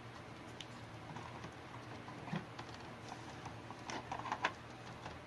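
Small scattered clicks, taps and knocks of hands handling computer hardware, with a louder knock about two seconds in and a quick cluster of taps near the four-second mark, over a faint steady low hum.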